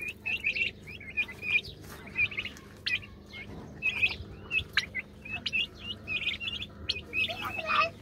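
Month-old turkey poults peeping: many short, high-pitched chirps one after another.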